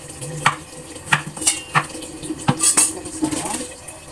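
Kitchen knife chopping carrots on a cutting board: a sharp knock of the blade on the board about every half second.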